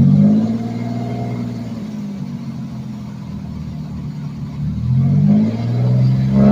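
2002 Ford Ranger's engine revved in short blips and falling back toward idle: one rev at the start, then two more near the end. The engine is being revved to build fuel pressure and check that a newly replaced fuel pump no longer leaks.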